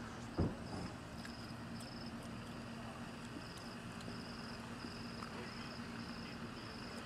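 Crickets chirping in short, evenly repeated high trills over a steady low hum, with a single thump about half a second in.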